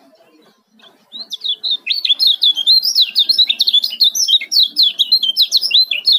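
Caged white-eye (kecial kuning) singing a rapid, tightly packed run of high chirping notes, starting about a second in.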